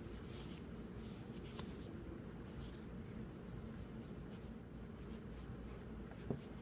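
Cloth wiping and rubbing over a revolver's metal frame and cylinder to dry it: a faint, irregular scratchy rustling.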